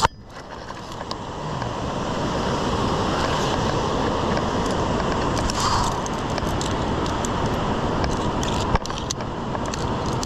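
Steady roar of a rushing whitewater river in the gorge below, swelling up over the first couple of seconds. A few light metallic clicks from via ferrata carabiners and lanyard gear on the steel cable and rebar rungs.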